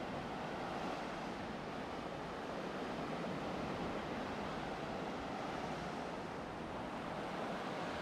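Ocean surf washing onto a beach, a steady, even rush of breaking waves.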